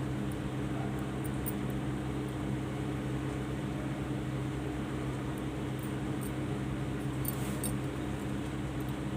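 A steady low mechanical hum with a few faint ticks scattered through it.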